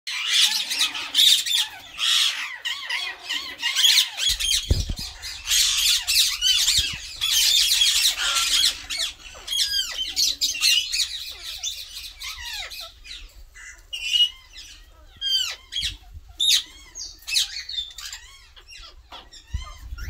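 A caged flock of Indian ringneck parakeets squawking: many shrill calls overlapping densely at first, then thinning out about halfway through to separate short calls.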